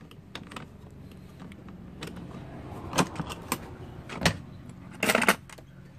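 Hand tools clattering and knocking in a toolbox as someone rummages through it, with a few sharp knocks in the second half and a cluster of clatter near the end, over a faint steady low hum.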